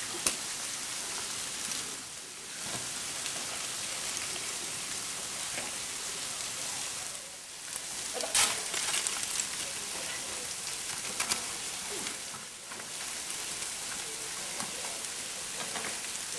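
A steady, even hiss that drops out briefly three times, about two, seven and twelve seconds in, with a few sharp clicks, the loudest about eight seconds in.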